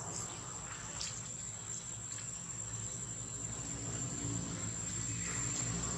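Steady high-pitched insect drone, likely cicadas or crickets, with a soft rushing noise swelling near the end.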